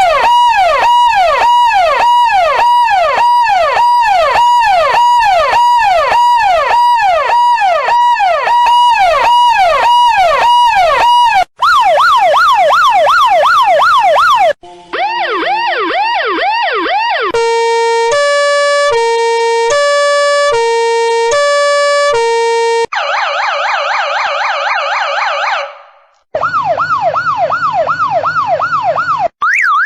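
A string of electronic emergency-vehicle siren sound effects played back to back. First comes a fast yelp of repeating sweeps, about two a second, for roughly the first eleven seconds, then a quicker yelp. Around the middle there is a two-tone hi-lo siren switching between two steady pitches about once a second, followed by a harsher buzzy siren and another fast yelp near the end, each cut off by a short break.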